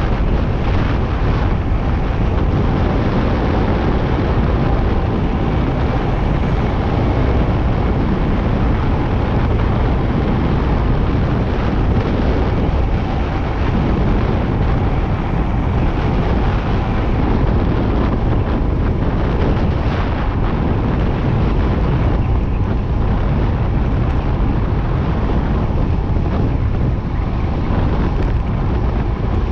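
Steady, loud rush of wind buffeting the microphone of a road bike descending at high speed.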